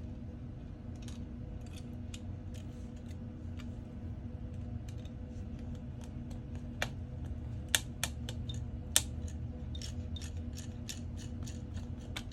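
Small sharp clicks and taps of precision tools working on an iPhone 14's internals during disassembly: scattered at first, with three louder snaps in the middle and a quick run of clicks near the end. A steady low hum sits underneath.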